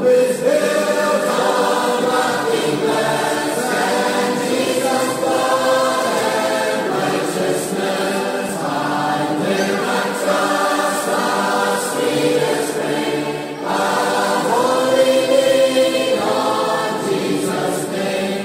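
Intro theme music sung by a choir, holding sustained chords in a gospel style.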